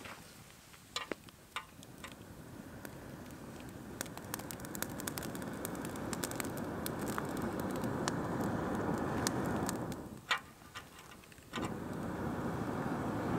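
Wood campfire being fanned with forced air: a steady rushing that builds over several seconds, stops for about a second and a half near the end, then starts again, while the burning wood crackles and pops.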